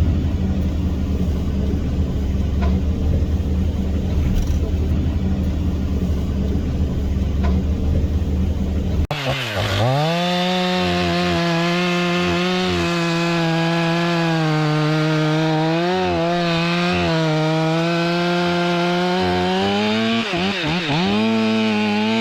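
For about nine seconds, a heavy machine's deep, steady engine rumble. Then, after an abrupt change, a two-stroke chainsaw running at high revs, its pitch dipping briefly as it starts and then holding fairly steady while cutting wood. Near the end it revs up and down quickly several times.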